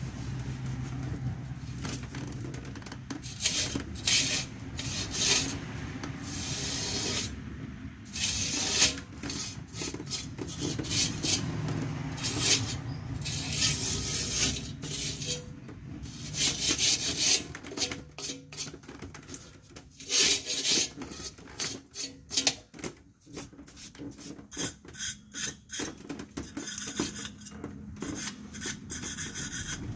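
Steel wire brush scrubbing the rear drum-brake parts clean in repeated rasping strokes: longer strokes at first, then quicker short strokes in the second half.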